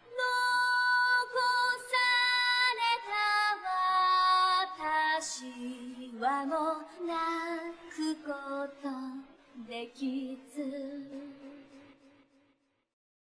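Background music: a song with a high female voice singing a melody, fading out near the end.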